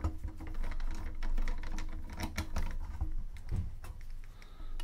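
Irregular small clicks and taps of a hand screwdriver working out the case screws of an NEC FD1165 floppy disk drive.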